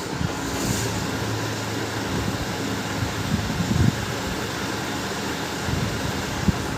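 Steady fan-like background hum with a few soft knocks of plastic parts being handled as the plastic cover of an HP LaserJet P1102 laser printer is fitted back on; the sharpest knock comes near the end.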